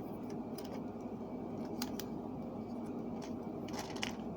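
Small sharp clicks and snips of pliers and craft wire as the wire is wrapped and tightened around the leg, about half a dozen scattered through, over a steady low hum.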